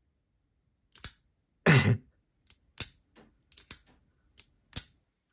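Winter Blade Co. Factor folding knife, which has a magnetic detent and magnetic hockey-puck lock, being flicked open and shut: a string of sharp clicks as the blade snaps against its stops, with one louder, longer snap a little under two seconds in and a faint metallic ring after two of the clicks.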